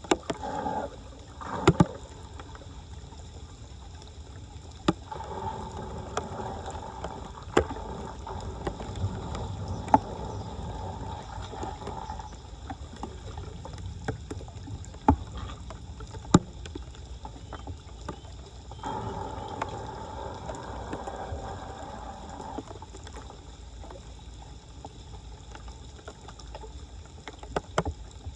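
Floodwater sloshing and splashing, with scattered sharp knocks and clicks. Twice a steady hum rises over it, first a few seconds in and again about two-thirds of the way through.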